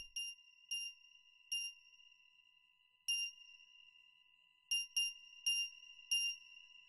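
A high, bright metallic ding sounds about nine times at uneven intervals, each strike ringing briefly and all at the same pitch, over a faint steady high tone.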